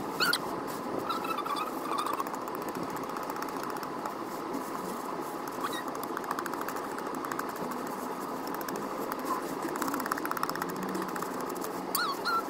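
Kitchen knife paring the spiny skin off a young jackfruit, in fast runs of scraping ticks about six and nine seconds in, over a steady background hiss; the footage is sped up.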